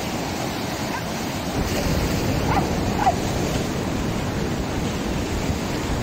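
Ocean surf breaking on a rocky shore: a steady wash of wave noise. Two short chirps are heard about halfway through.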